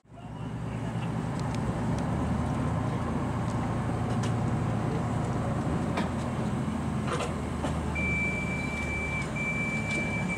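Passenger train rolling slowly past a grade crossing: a steady low rumble with a few sharp knocks. From about eight seconds in there is a thin, high, steady squeal that breaks off briefly twice.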